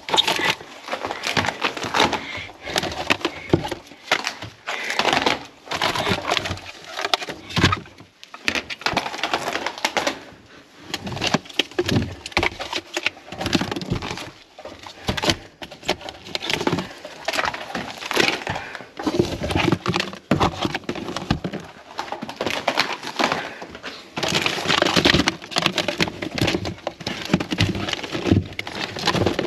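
Plastic food packaging being handled: spread tubs and vacuum packs clattering, knocking and crinkling against each other in a continuous irregular run as gloved hands rummage through them.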